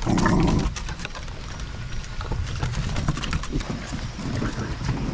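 Small puppies moving about on a wooden deck: scattered light clicks and scuffs of paws and claws on the boards, with a brief louder low sound in the first second.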